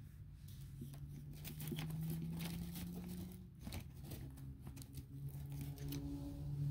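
Fabric rustling and small irregular clicks of handling, over a steady low hum.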